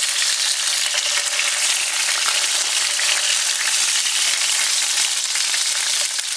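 Chunks of deer leg meat searing in very hot oil in a pan over a high flame: a steady sizzle as the outside of the meat is sealed.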